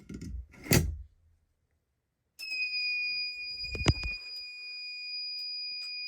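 A few clicks and knocks, then about two and a half seconds in a fire alarm sounder starts a steady, continuous high-pitched tone that dips slightly as it starts and then holds level. A single sharp knock comes about four seconds in.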